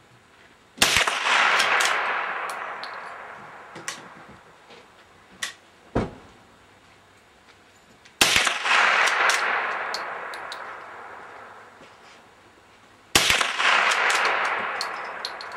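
Three .22 LR shots from a Remington 572 pump-action rifle, several seconds apart, each a sharp crack followed by a long fading tail. A couple of small clicks sound between the first and second shots.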